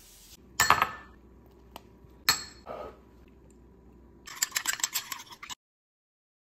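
Dishes and utensils clinking: a few sharp clatters, then a metal spoon clinking rapidly against a small ceramic bowl while stirring a sauce, cutting off abruptly near the end.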